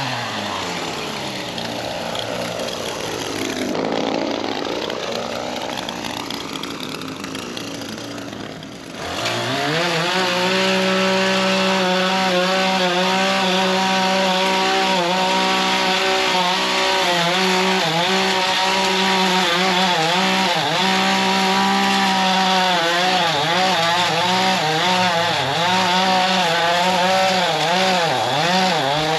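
Gas-powered lawn edger's two-stroke engine running. It runs lower and quieter for the first several seconds, then throttles up about nine seconds in and holds high revs, wavering slightly in pitch near the end.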